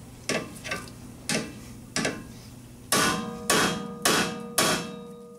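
A hammer striking a hand impact screwdriver seated in a brake rotor retaining screw, seven blows: three spaced out, then four quicker, louder ones with a short metallic ring after each. The blows are breaking the rust bond so the screw will turn loose.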